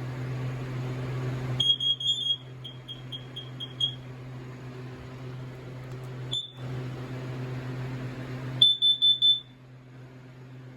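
Kidde carbon monoxide alarm sounding on its test: high-pitched electronic beeps, first a short tone and then a run of quick beeps at about four a second, a single blip a few seconds later, and another short burst of rapid beeps near the end.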